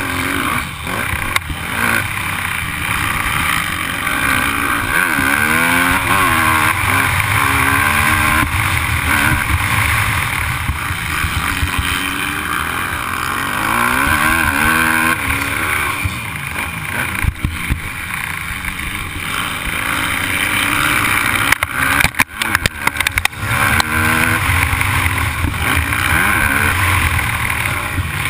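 Motocross dirt bike engine revving hard and easing off again and again as the rider races, pitch climbing and falling, with wind rushing over the helmet-camera microphone. A cluster of sharp knocks comes about two-thirds of the way through.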